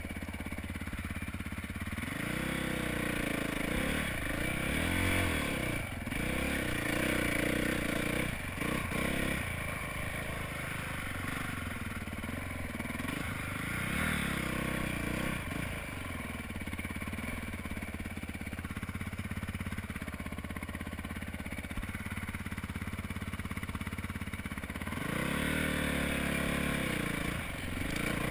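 Honda dirt bike engine revving up and down again and again as it is ridden over rough single track, heard from the rider's helmet.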